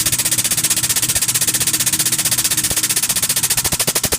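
Power hammer striking a hot steel knife blade in a fast, even stream of blows through forming dies. The blows slow and spread apart near the end.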